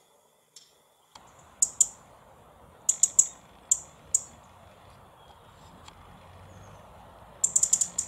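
European robin giving sharp, high 'tic' calls, singly and in quick runs of two or three, with a rapid cluster of tics near the end, over faint outdoor background noise.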